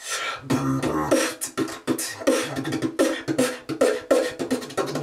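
Voice percussion (beatboxing): a fast, busy rhythm of mouth-made kick, hi-hat and snare sounds, with short low hummed tones between the hits.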